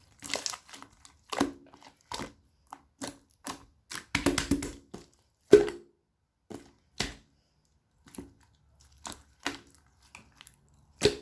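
Slime being squeezed and pressed by hand, giving a string of sharp clicks and pops, about one or two a second, the loudest about five and a half seconds in.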